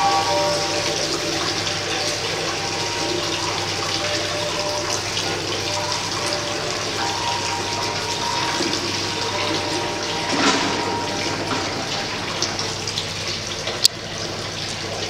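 Water poured in streams from raised metal buckets into metal buckets below, a steady splashing with faint held tones underneath. A single sharp click comes near the end.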